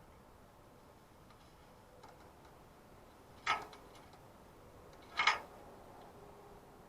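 Two short, sharp clicks nearly two seconds apart, the second a little louder, over a faint steady hiss.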